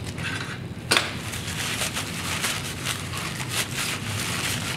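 Paper shop towels rustling and crinkling as a metal shaft is rubbed clean by hand, with one sharp click about a second in.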